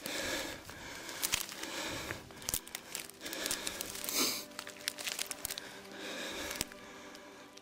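Dry dead bracken and grass stems crackling and rustling as a hand pushes and pulls them aside, in a run of irregular crisp crinkles and sharp snaps.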